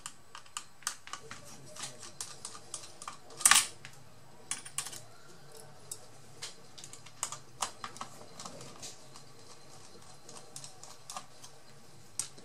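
Irregular small clicks and taps of a precision screwdriver working the fan and heatsink screws inside an opened laptop. One louder clack comes about three and a half seconds in.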